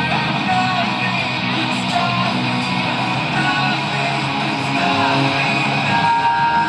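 Music with strummed guitar, playing steadily.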